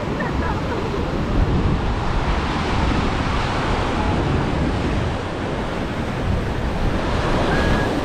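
Ocean surf washing onto a sandy beach, a steady rush of breaking waves, with wind rumbling on the microphone.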